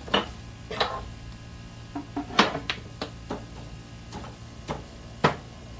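Wood fire crackling over a bed of embers, with about a dozen sharp pops and cracks coming at irregular intervals.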